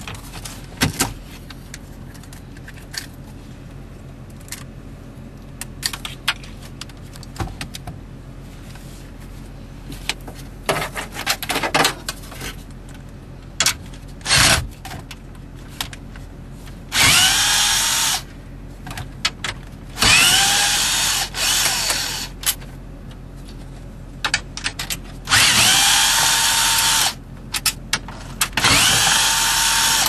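Makita cordless drill/driver running in four short bursts of one to two seconds each, its whine rising in pitch as each run starts, turning the screws that hold the radio in the dash. Before that, scattered clicks and knocks of plastic dash trim being handled.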